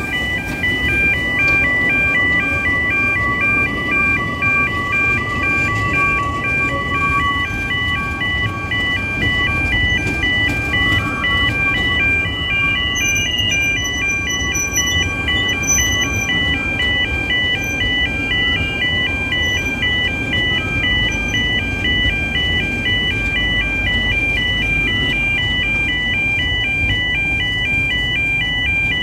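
E2S level-crossing alarm sounding continuously, a fast, evenly repeating multi-tone electronic warble that the uploader calls dodgy. Under it is the low rumble of a narrow-gauge steam train's carriages rolling past over the crossing.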